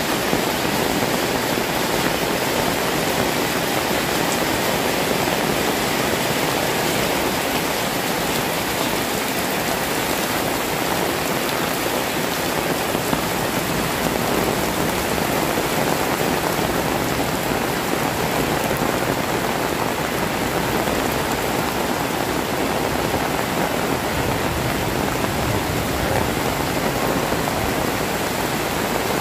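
Heavy rain pouring steadily onto a paved alley and the roofs around it: a dense, even hiss of falling water.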